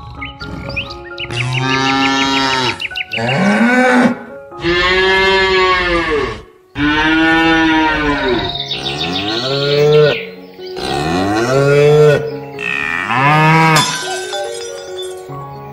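Bovine lowing: a series of six or seven long moos, each rising and then falling in pitch, with short gaps between them. Faint steady musical tones sit underneath.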